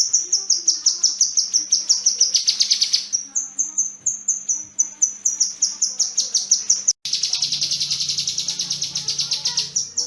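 Kinoi songbird singing a rapid string of sharp, high repeated notes, several a second, in long unbroken runs. There is a brief cut about seven seconds in, after which the notes come faster.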